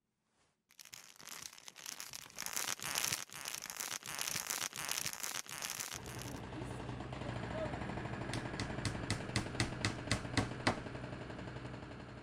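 Dense crackling and rustling noise starts suddenly just under a second in. About halfway through, a low steady hum joins it, and near the end a quick run of sharp clicks comes at about five a second before the sound fades.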